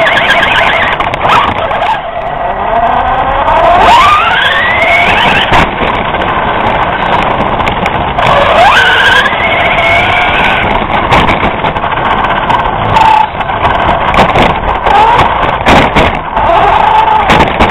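Mad Fighter RC buggy driving, heard from its onboard camera. The motor and drivetrain whine, rising in pitch as the car speeds up about two seconds in and again about eight seconds in. Rattles and knocks come from the car bouncing over rough ground.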